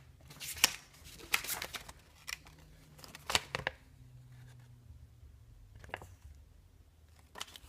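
Paper and cardboard phone packaging being handled: short rustles, scrapes and clicks in a few clusters with pauses between.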